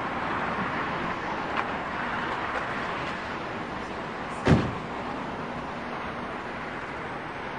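Steady background hiss with one sharp, loud thump about halfway through and a faint click earlier.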